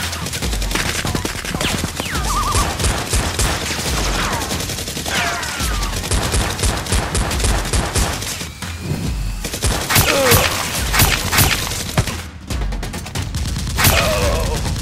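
Rapid, near-continuous gunfire sound effects like automatic weapons, dubbed over a Nerf blaster shootout.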